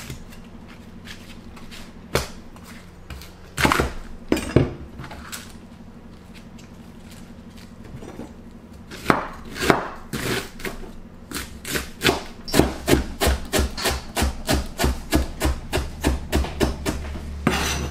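Kitchen knife cutting a cabbage on a plastic cutting board: a few single cuts, then from about nine seconds in fast, even chopping into strips at about four strokes a second.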